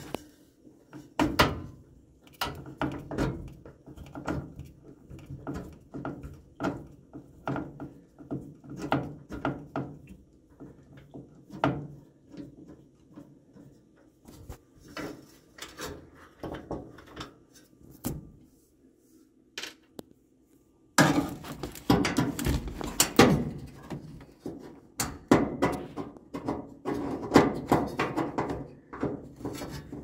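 Hand work with a screwdriver on a washing machine's sheet-metal top panel: irregular clicks, taps and knocks of metal and plastic, growing louder and busier about two-thirds of the way in.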